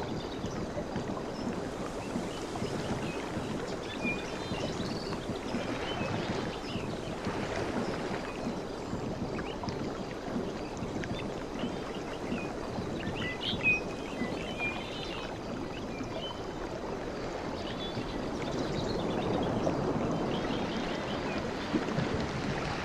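Sea waves washing in a steady wash that swells and eases, with short bird chirps scattered through it.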